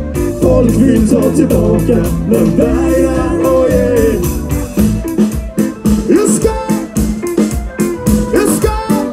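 Live band playing amplified music on electric guitar and bass, with a melodic line over the first few seconds and a steady beat after that.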